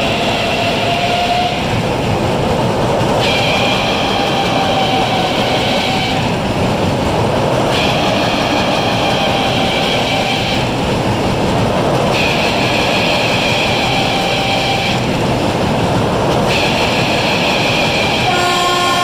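Bobsled-style cars of a spinning amusement ride running on their circular track with a loud, steady, train-like rumble. A high-pitched whine cuts in and out at a regular interval of about four and a half seconds.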